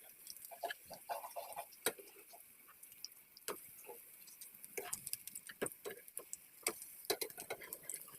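Irregular sharp pops and crackles over a faint steady hiss, as aloo tikki potato patties shallow-fry in hot oil.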